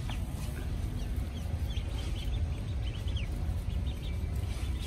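A brood of young poultry in a heat-lamp brooder, peeping: many short, high peeps scattered over a steady low rumble.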